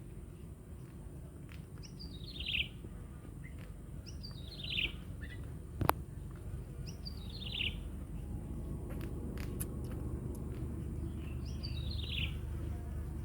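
A bird calling: a short, falling chirp repeated every two to three seconds over a steady low background rumble, with one sharp click near the middle.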